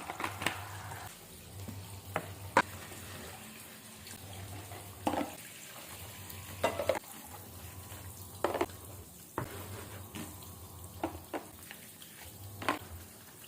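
Food sizzling while frying in a pan, stirred with a utensil that knocks and scrapes against the pan about once every second or two.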